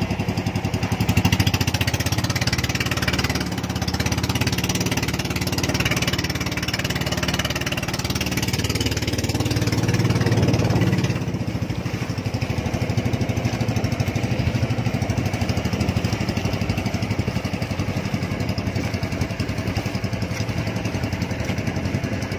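Small fishing boat's engine running steadily, a little quieter from about eleven seconds in.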